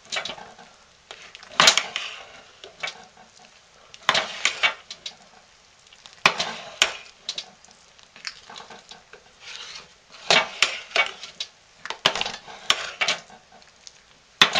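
A spoon stirring thick hot-process soap with chunks of existing soap mixed in, in a slow-cooker crock: irregular scraping strokes every second or two, with clinks of the spoon against the pot.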